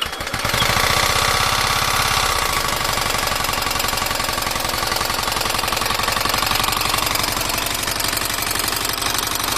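Kawasaki Ninja 650 parallel-twin engine running steadily just after starting, with rapid even pulsing. This is the abnormal engine noise that the owner is presenting.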